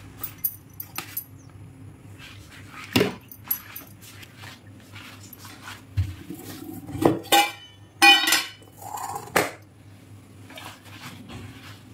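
Stainless steel kitchen containers, lids and pots being handled on a stone counter: scattered knocks and clatter, with two louder ringing metal clinks around seven and eight seconds in.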